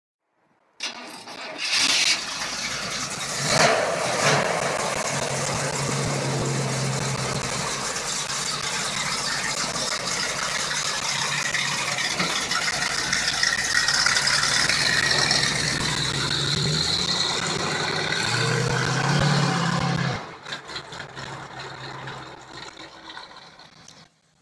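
1955 Chevy Apache's 383 stroker small-block V8 with Edelbrock carburettor being started about a second in and blipped twice, then idling steadily through its new exhaust. It rises briefly near the end, then falls away to a much quieter sound.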